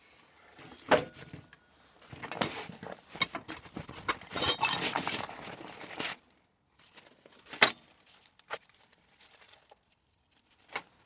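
Small metal chainsaw parts and hand tools clinking and rattling as they are handled on a workbench, in irregular bursts for about six seconds, then a single sharp click and a few faint taps.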